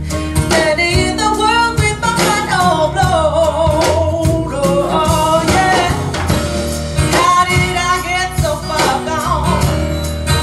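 A song played back over Wilson Audio Sabrina loudspeakers: a singer with plucked guitar over a steady bass line.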